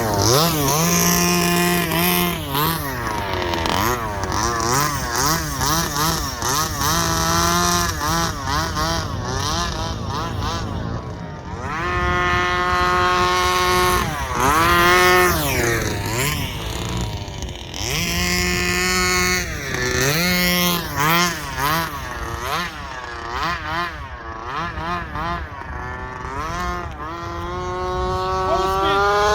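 Rovan Baja 32cc RC car's two-stroke gasoline engine running under way, its pitch rising and falling over and over with the throttle. There are a few steady stretches at high revs, and a long climb in revs near the end.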